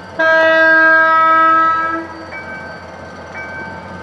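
Diesel locomotive's multi-tone air horn sounding one long blast of about two seconds, over the low rumble of the approaching train. After the blast a level-crossing warning signal chimes about once a second.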